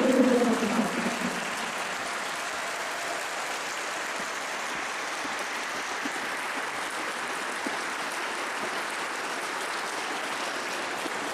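Audience applauding: many hands clapping steadily in a dense, even patter.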